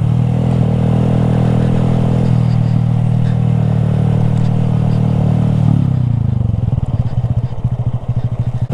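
Honda Grom's single-cylinder four-stroke engine running at a steady speed, then the throttle is rolled off about two-thirds of the way in and the note falls to a slow, lumpy idle with each firing pulse heard separately.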